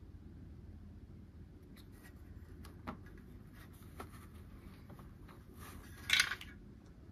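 Faint small clicks and taps of hard plastic toy parts as a toy beach umbrella's pole is fitted into a plastic playset base, then a brief louder scrape or rustle about six seconds in.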